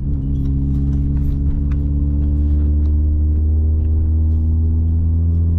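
Car engine and road noise while driving along: a steady low hum with a few even overtones above it.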